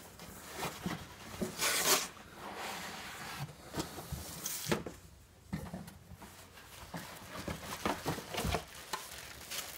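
Packaging handling: a cardboard box, molded pulp end caps and a plastic-bagged cutting machine rustling, scraping and knocking as the machine is lifted out of the box. Scattered rustles and knocks, the loudest about two seconds in and again near five seconds.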